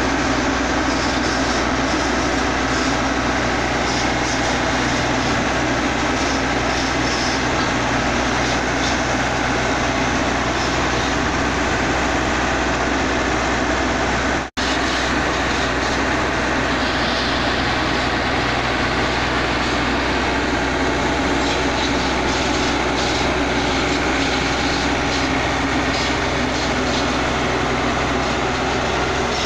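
L&T Komatsu PC71 hydraulic excavator's diesel engine running steadily as the machine drives up onto a truck bed. The sound drops out for an instant about halfway through.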